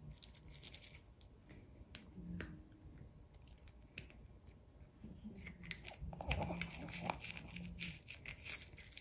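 Dog toothbrush bristles scrubbing a red teacup poodle puppy's front teeth. A few scratchy strokes come near the start, then denser, louder scrubbing runs from a little past halfway.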